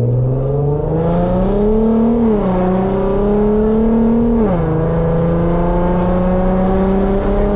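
Infiniti Q50's loud-exhausted VQ V6 accelerating through the gears: the engine note climbs, drops at an upshift about two seconds in, climbs again and drops at a second upshift about four and a half seconds in, then pulls on more gently.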